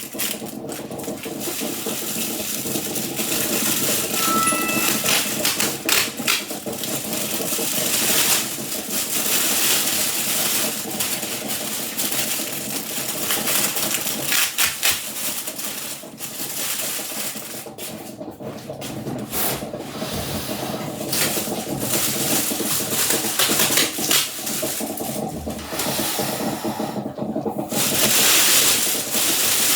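Packaging being handled and pulled off the 3D printer: continuous rustling and crinkling of plastic wrap, foam and cardboard, with uneven crackles throughout.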